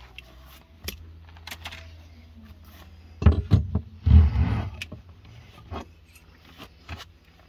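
Steel flat-end crowbar knocking against a nail head in a wooden panel several times, then a loud scraping creak as it pries the nail out. Light clicks of tool handling before and after.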